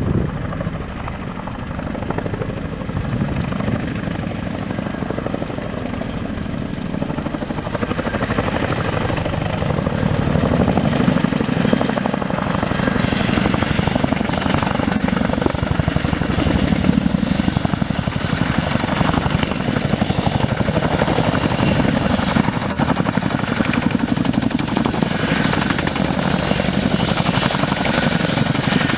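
Two RAF Chinook tandem-rotor helicopters flying toward the microphone, the rotors beating rapidly over a steady high whine. The sound grows louder about eight seconds in and stays loud as one approaches head-on.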